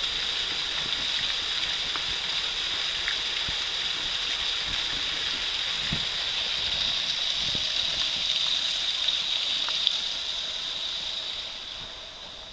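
Small waterfall spilling down a rock face and splashing onto the stones below: a steady rush of water that fades about eleven seconds in.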